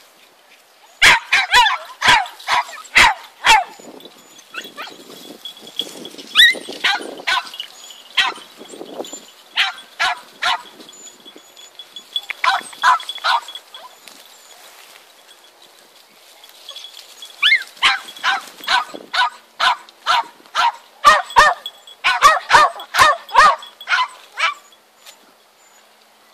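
A dog barking in quick volleys of sharp, high-pitched barks, several a second, with pauses of a few seconds between volleys.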